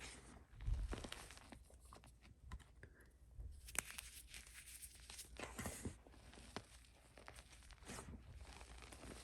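Gym chalk topped with cornstarch being pressed and crumbled by hand, with irregular crunching and crackling. There is a low thump about a second in.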